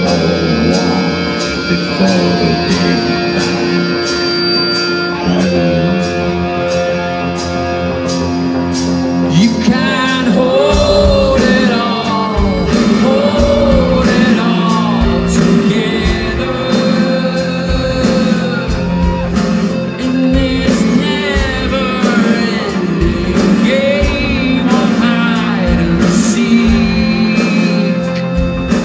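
Rock band playing live: sustained keyboard chords over a regular ticking cymbal, then about ten seconds in a kick drum and bass come in with a steady pulse and a male lead voice sings over them.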